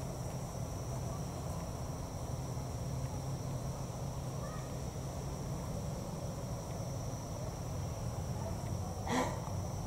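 Night insects trilling in a steady, unbroken high chorus. A brief louder noise cuts in about nine seconds in.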